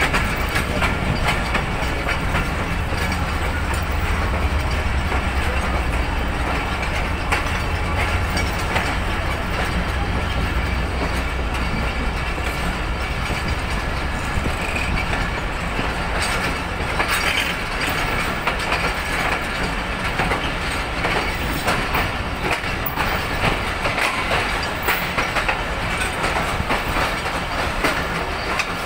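Passenger train pulling into a station, heard from an open coach door: wheels clacking over rail joints and points above a steady rolling rumble. The deep low rumble dies away about halfway through.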